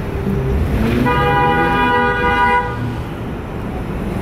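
A vehicle horn sounds one steady blast of almost two seconds, starting about a second in, over the low running of engines and road traffic.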